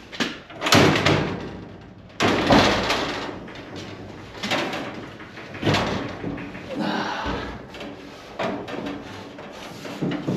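Irregular bangs, thuds and scraping as a heavy pickup bed assembly is wrestled into the back of the truck.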